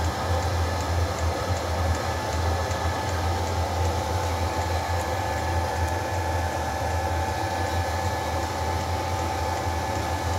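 A fuel-burning machine running steadily on a test bench, with a strong low hum, a steady higher whine and a hiss of combustion or fan noise; its exhaust is running hot.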